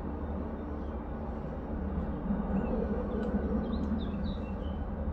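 Steady low rumble of a distant helicopter's rotor and engine, with a few short bird chirps about three to four and a half seconds in.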